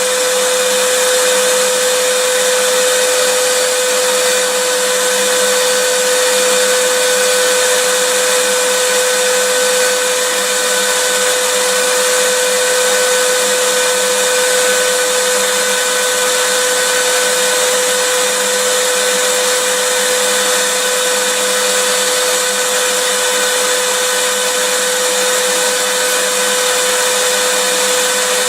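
Vacuum cleaner running steadily: an even rushing hiss of air with a constant motor whine.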